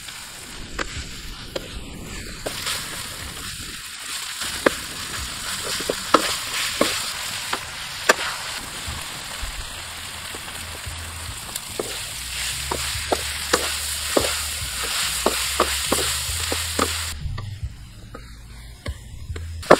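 Frog meat and greens sizzling in a steel wok while a spatula stirs them, scraping and clacking against the pan many times. Near the end the sizzle dies down and only the spatula clacks go on.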